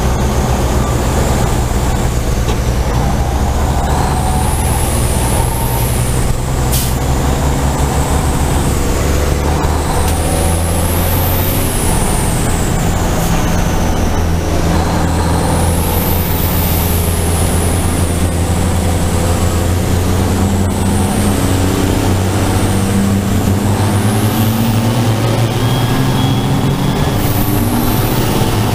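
Race truck's turbodiesel engine heard onboard under racing load: a steady deep drone with a high whistle that rises and falls several times as the throttle opens and closes.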